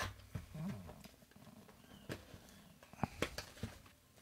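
Quiet handling of a paperboard product box: a few soft clicks, taps and rustles as the box is opened and the item inside is slid out.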